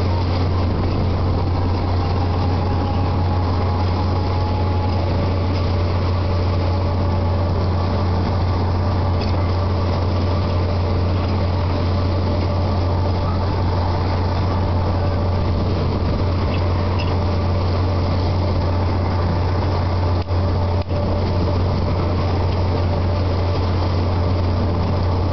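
Steady, unbroken low drone of running machinery, with faint steady tones above it and two brief dips about twenty seconds in.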